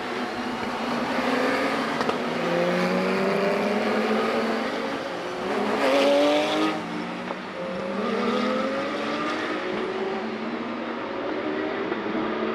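Several Porsche 911 GT3 Cup (992) race cars passing one after another, their 4.0-litre flat-six engines climbing in pitch through upshifts. The loudest car goes by about six seconds in.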